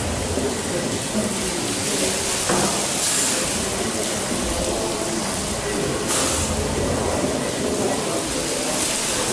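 1904 two-cylinder Woolf compound beam pumping engine running slowly. A steady mechanical rumble comes from its motion and valve gear, with a rush of steam hiss swelling roughly every three seconds.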